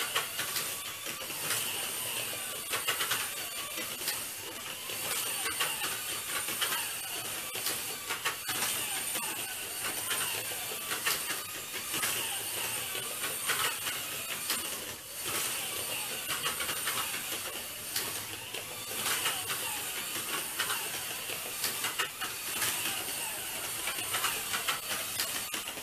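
Two Scalextric Micro 1:64 slot cars running laps of a plastic track: their small electric motors give a steady high whine, with frequent clicks and rattles, and the sound swells and fades as the cars pass.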